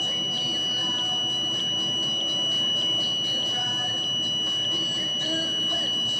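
Steady high-pitched electronic tone with a faint tick about every 0.6 seconds, from a battery-powered handheld detector the user points at suspected microwaves.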